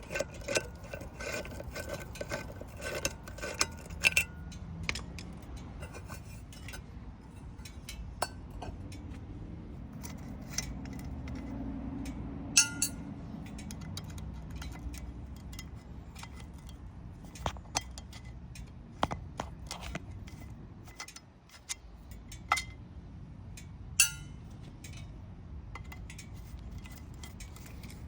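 Metal hand tools clinking and scraping against motorcycle engine parts: irregular sharp clicks and knocks, a few louder ones scattered through, over a low steady background rumble.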